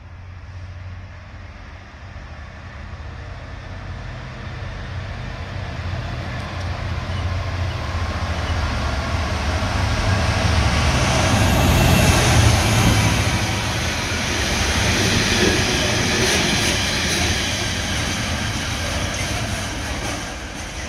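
A Class 66 diesel locomotive hauling a train of wagons approaches and runs through the station. Its low engine rumble and the rail noise build steadily to a peak about twelve seconds in as the locomotive passes. The wagons then roll by with wheel clatter, easing a little near the end.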